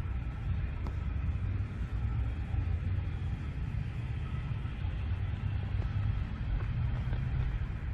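Steady low rumble of distant road traffic, with faint thin tones held above it.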